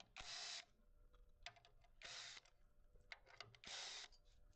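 Faint handling noise from taking off the cover: scattered light clicks and three short scraping bursts, each about half a second long and spaced roughly a second and a half to two seconds apart.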